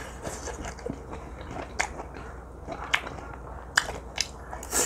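Close-miked chewing of a mouthful of stir-fried squid, with a few sharp clicks now and then.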